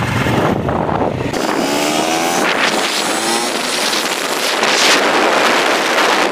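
Small motorcycle engine running under way, its note climbing twice as the bike picks up speed, with wind buffeting the microphone.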